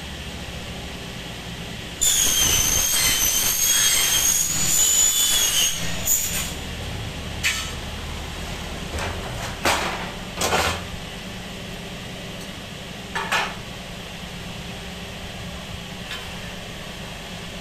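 Saw cutting through aluminium window section: a loud, high whine that starts about two seconds in and lasts about four seconds, followed by a few short knocks over a steady hum.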